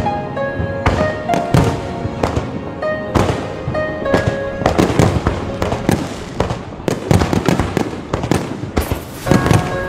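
Fireworks display: shells bursting again and again in sharp bangs, packed closer together from about halfway, over music playing a melody.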